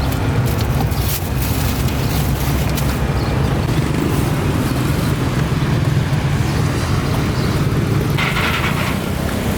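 Steady low rumble of busy road traffic, with motor vehicles running past.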